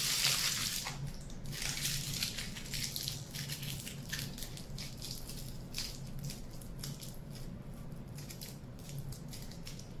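Aluminium foil crinkling as it is squeezed and wrapped around a wire armature leg: a dense crinkle in the first second, then scattered short crinkles.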